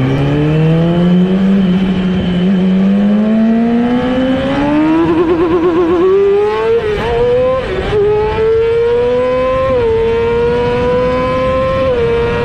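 Yamaha R6's 600cc inline-four engine accelerating hard, its pitch climbing steadily with a brief warble about five seconds in and two small drops in pitch near the end.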